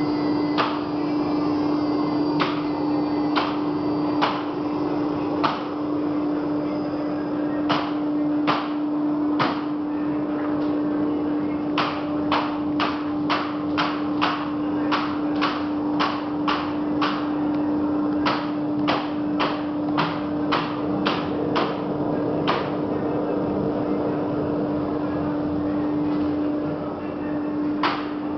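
CNC router milling slots in a 5 mm acrylic sheet: the spindle runs with a steady hum while sharp clicks come through the cut, for stretches about two a second. The spindle hum dies away near the end.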